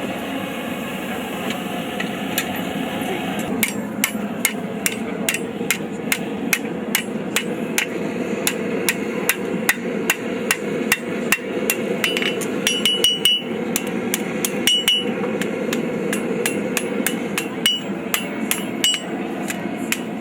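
Blacksmith's hammer striking a hot horseshoe file on an anvil, a rapid series of blows about three a second that begins a few seconds in, with the anvil ringing on some strikes, as the file is forged into the shape of a snake. A steady whooshing hum runs underneath.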